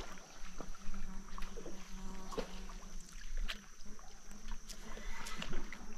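Scattered small splashes and sharp clicks as a hooked peacock bass thrashes at the surface beside a boat, over a faint steady low hum.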